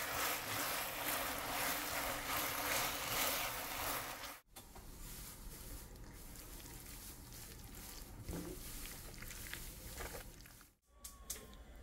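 Seaweed stems sizzling in a wok as they are stir-fried and turned with a wooden spoon. The sizzle cuts off sharply about four seconds in, and a quieter frying and stirring sound follows, with a few light scrapes.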